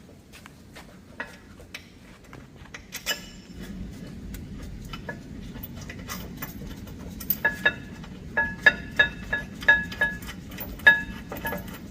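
Metal brake parts and tools clinking and tapping during rear brake reassembly. Scattered clicks come first, then from about the middle on a quick run of sharp metallic strikes that ring at the same pitch each time.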